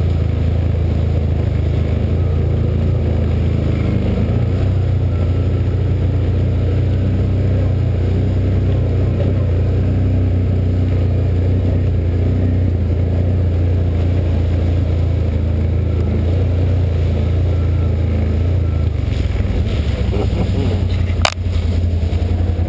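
A 2013 Can-Am Outlander 1000 ATV's V-twin engine runs steadily under way, a loud low rumble. One sharp knock comes near the end.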